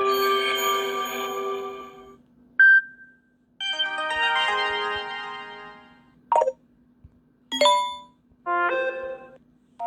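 Samsung Galaxy S10e notification tones played one after another: about six short chimes, some a few-note jingle lasting a second or two, others a single quick ding, separated by short gaps.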